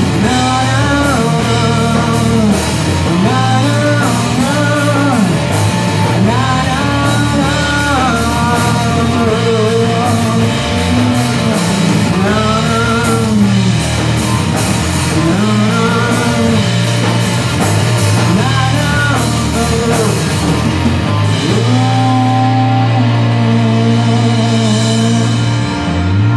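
Live rock band playing: a repeating melodic phrase, most likely electric guitar, over bass and drums, settling into long held notes in the last few seconds.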